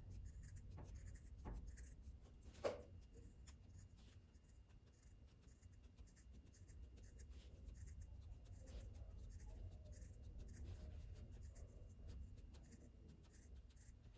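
Faint snips of scissors clipping notches into the curved seam allowance of a padded fabric oven mitt: a few separate cuts, the clearest about three seconds in, with fainter snipping later on.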